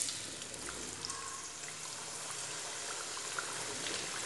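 Raw potato cubes deep-frying in hot oil, a steady sizzle with fine crackling, just after they were dropped into the pan.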